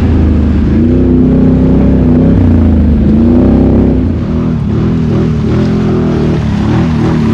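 Can-Am XMR 850 ATV's V-twin engine through an aftermarket slip-on exhaust, revving up and down under throttle. About four seconds in the note turns choppier, rising and falling quickly.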